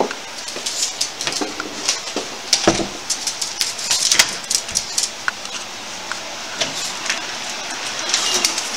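Small dog's claws clicking and scratching on a tile floor and against a door, in quick irregular clicks as it dances about and paws at the door.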